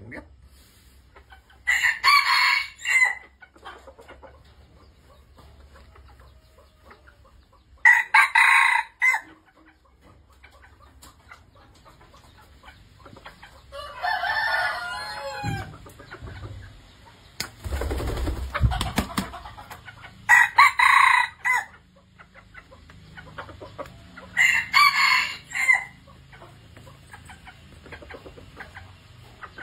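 White-eared red junglefowl rooster crowing four times, each crow short and broken, spaced several seconds apart, with the last two close together.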